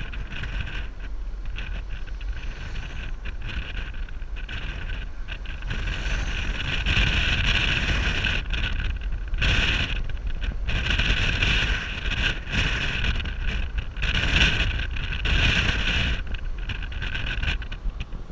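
Car driving along a road, heard from beside the passenger window: a steady low road and engine rumble under wind noise that buffets the microphone in gusts, a little louder from about six seconds in.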